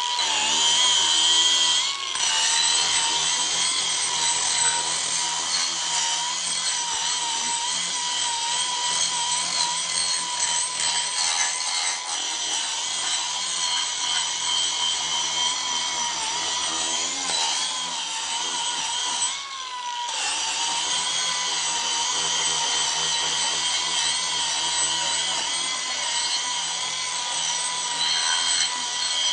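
Angle grinder fitted with a wood rasp disc, running and grinding wood: a steady high motor whine over a coarse rasping noise, easing off briefly about two-thirds of the way through.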